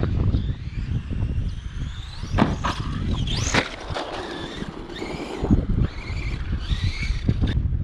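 Brushless electric motor of an RC monster truck whining as it revs up and down, with a few sharp knocks from the truck hitting the ground, over low wind rumble on the microphone.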